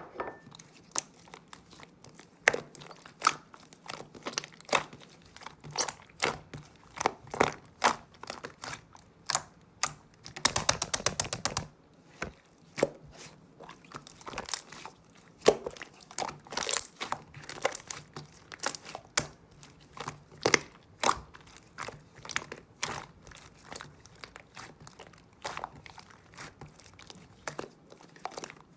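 White slime being played with by hand: a continual string of sticky clicks and pops as it is pressed, folded and stretched. About ten seconds in there is a quick rattle of rapid crackling pops.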